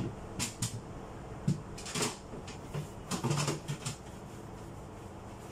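Irregular knocks, taps and clicks of refrigerator shelves, containers and fittings being handled during cleaning, the loudest about two seconds in and a little past halfway.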